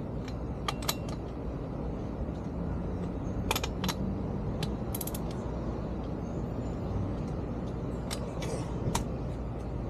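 Scattered sharp metallic clicks and clinks of the lug nuts and hand tools being handled while a motorcycle wheel is refitted by hand, over a steady low rumble.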